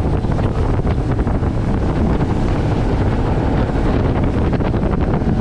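Wind buffeting the microphone on an inflatable motorboat running fast through choppy water, with water rushing and spraying past the hull. The noise is loud and steady and heaviest in the low end, broken by constant gusty crackles.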